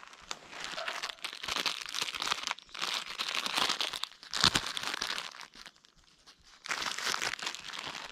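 A plastic snack packet crinkling in the hands as it is handled and opened. The crinkling comes in several spells with short pauses, and one sharper, louder crackle comes about halfway through.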